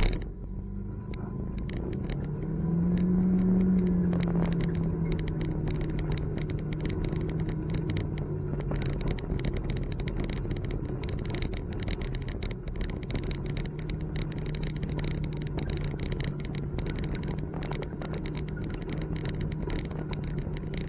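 Textron Havoc X UTV engine running while driving on a dirt trail. It speeds up and swells a couple of seconds in, then settles into a steady drone. From about a third of the way in, frequent short clicks and rattles ride over it.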